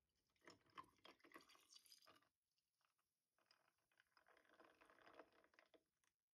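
Milk, oat milk, poured from a jug into a glass over ice cubes: two pours with a short pause between them, splashing and trickling as the glass fills.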